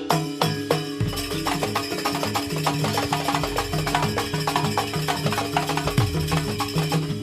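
Jaranan dance accompaniment music: drums and struck percussion in a fast, even rhythm over steady sustained tones. The strokes quicken and thicken about a second in.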